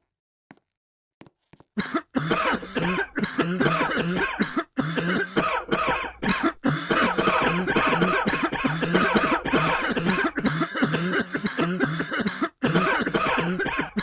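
Coughing and throat clearing, starting abruptly about two seconds in and going on almost without a break, with a few short gaps.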